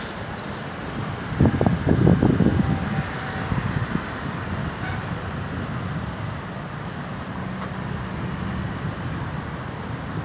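Road traffic noise, a steady low rumble of passing vehicles that swells louder for a second or two about a second and a half in.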